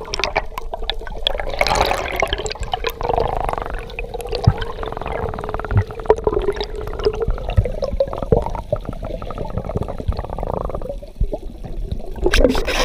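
Underwater water noise and bubbling, with scattered clicks and a steady low tone running underneath, as a diver swims up toward the surface. A louder burst of splashing comes near the end.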